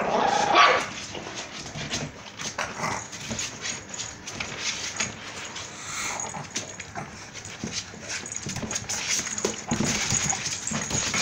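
Four-week-old pit bull puppies whimpering and scrambling, loudest in the first second, with many small clicks and scrapes throughout.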